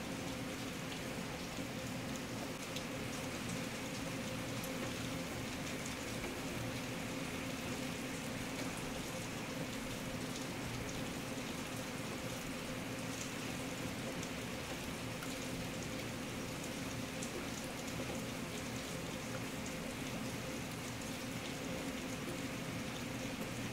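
Steady rain falling, with fine ticks of individual drops scattered through the even hiss.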